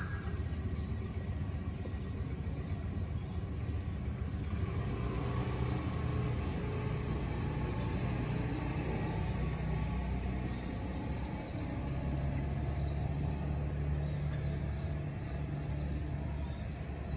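Steady low rumble of a running motor vehicle.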